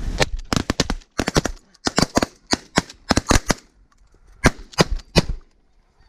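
A volley of shotgun fire from several hunters shooting together at geese: about twenty shots in quick, overlapping succession over the first three and a half seconds, then three more spaced shots a little later.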